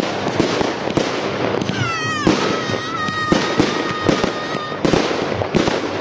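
Fireworks display going off: dense crackling and popping from bursting shells and crackle stars all through. About two seconds in, a high whistle drops in pitch and then holds steady for a couple of seconds.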